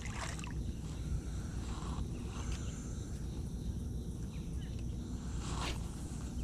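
A spinning rod being cast, a brief swish about five and a half seconds in, over a steady low rumble and faint high insect trilling.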